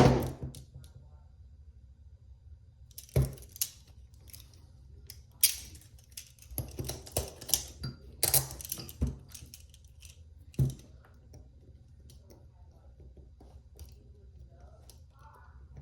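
Steel handcuffs being handled: sharp metallic clicks and clinks in irregular clusters, with one loud clack at the start and another about ten seconds in. The sounds die away to quiet for the last few seconds.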